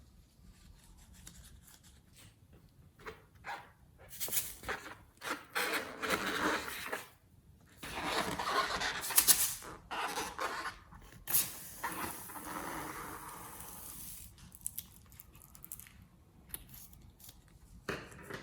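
Slime being squished, stretched and pressed by hand in irregular wet, crackly bursts, with scattered small clicks.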